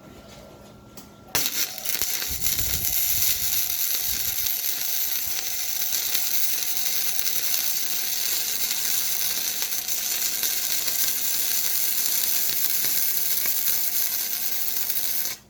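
MIG welder laying a weld bead: a steady crackling, sizzling arc that strikes about a second in and runs evenly until it cuts off sharply near the end.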